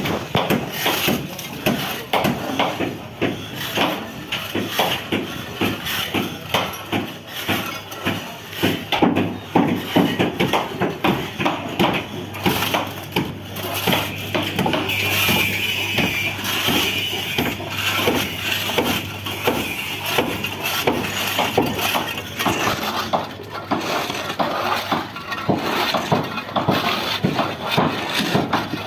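Hand scrapers chipping barnacles and shells off a ship's hull: rapid, irregular scraping and crunching strokes, several a second, without pause.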